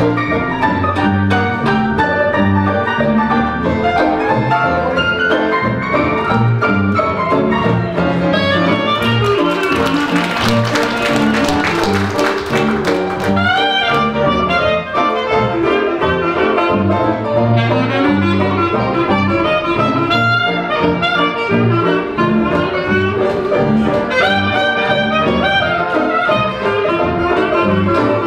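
Dixieland jazz band playing live: clarinet, cornet, trombone, string bass, banjo and piano, with the clarinet taking the lead in the second half. For a few seconds about a third of the way in, scattered applause rises over the band.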